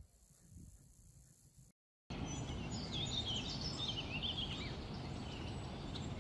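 Near silence for about two seconds, then from a cut a steady outdoor hiss with small birds chirping over it, the chirps busiest in the middle.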